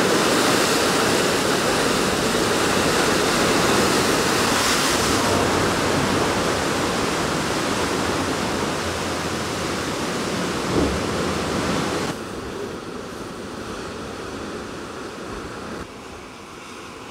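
Sea surf churning and rushing through a narrow rock gully: a loud, steady rush of foaming water. It drops sharply quieter about twelve seconds in, and a little quieter again near the end.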